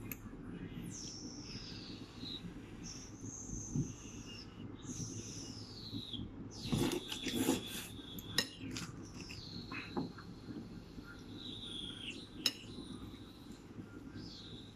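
Metal spoons and forks scraping and clinking on plates and a metal bowl while people eat, with a few sharp clinks and a louder clatter about seven seconds in. Faint high whistles that fall in pitch come several times.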